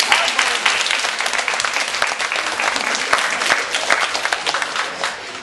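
Audience applause, many hands clapping at once, dying away near the end.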